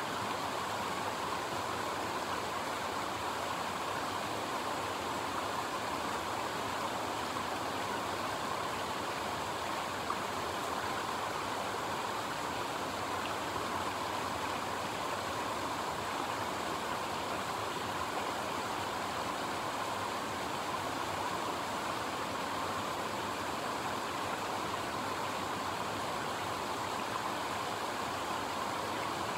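A stream rushing steadily: an even, unbroken hiss of running water.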